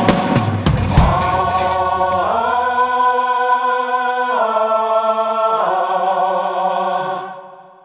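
Ending of a song: a few drum hits in the first second, then sustained sung chords that shift pitch three times before fading out near the end.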